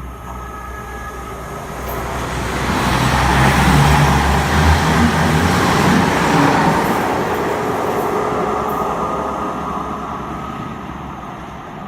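CrossCountry diesel passenger train running through the station without stopping. Its engine drone and the rush of wheels on rail build to a peak about four seconds in, then fade away.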